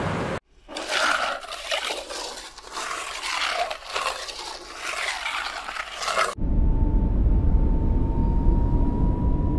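Ice scraper scraping frost off a car windscreen, heard from inside the car as uneven scratchy strokes. About six seconds in it switches abruptly to a car driving: a steady low rumble with a faint, slowly rising whine.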